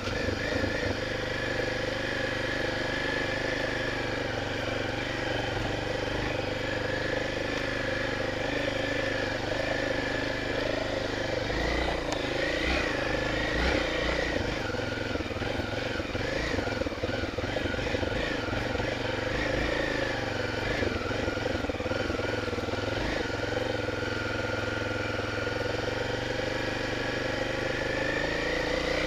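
Honda XR 250 Tornado's single-cylinder engine running at a steady speed while the motorcycle is ridden, the pitch rising slightly near the end.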